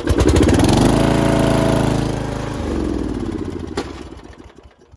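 An Ariens riding mower's 9-horsepower flathead engine catches on the electric starter and runs loudly for about two and a half seconds. It then winds down and stops, with a single click just before it goes quiet.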